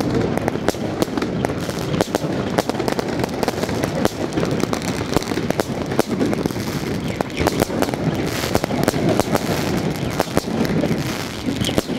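Fireworks and firecrackers going off nonstop: many sharp cracks and bangs at irregular, close intervals over a continuous crackling din.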